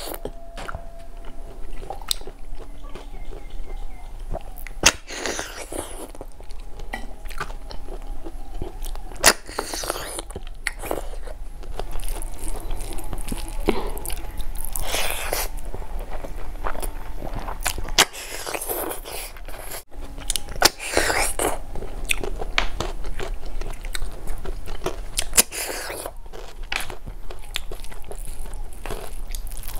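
A person eating snail curry with rice and salad: steady chewing and biting, with many sharp crunches and clicks scattered through.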